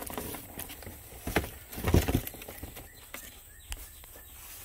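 A few scattered knocks and thuds, the loudest pair about two seconds in, over a low background hum.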